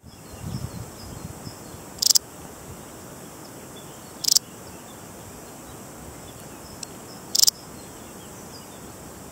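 Balearic saddle bush-cricket (Parasteropleurus balearicus) giving three short, high-pitched chirps about two to three seconds apart, over a steady background hiss.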